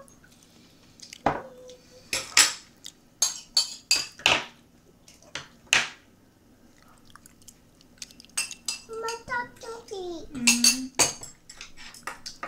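Plastic training chopsticks clicking and tapping against a soup bowl as noodles are picked up: a scattering of sharp knocks, in clusters around 2–4 s in and again near the end. A child's short vocal sounds come in a little past the middle.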